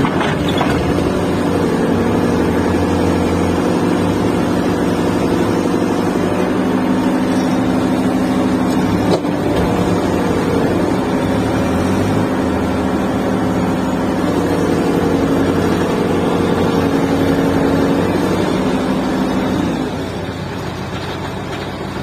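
Diesel engine of a backhoe loader running close by, its pitch stepping up and down every few seconds as the hydraulic arm is worked. The engine settles lower near the end.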